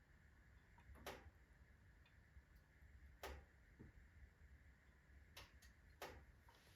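Birch wood fire burning down slowly in a fireplace: faint, sparse crackles, a single sharp tick every second or two, about five in all.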